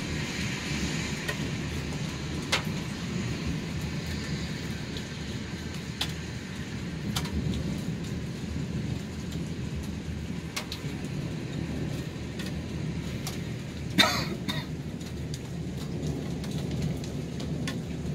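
Heavy rain falling in a thunderstorm, a steady wash of noise with a low background, with scattered drops ticking sharply on a hard surface close by. About three-quarters of the way through there is one loud sharp knock, quickly followed by a weaker one.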